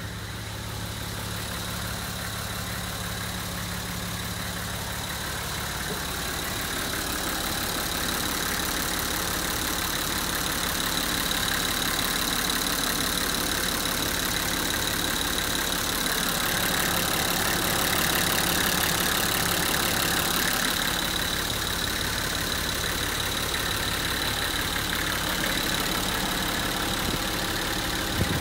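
Nissan TD42 4.2-litre inline-six diesel engine idling steadily, growing louder in the middle as it is heard close up at the open engine compartment.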